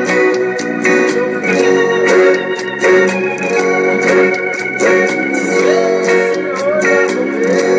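A man singing while strumming an acoustic guitar, with steady rhythmic strums under a wavering sung melody.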